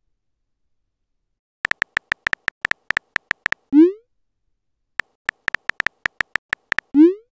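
Simulated phone-keyboard typing clicks from a chat-story app, in two runs of about two seconds at roughly six clicks a second. Each run is followed by a short rising pop, the app's message-sent sound effect.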